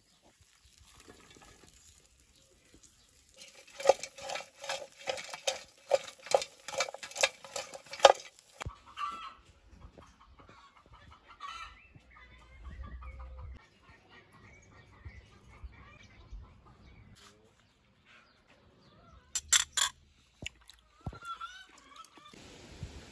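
Chicken clucking: a fast run of about a dozen loud clucks over some four seconds, followed by quieter, scattered calls. A couple of sharp knocks come near the end.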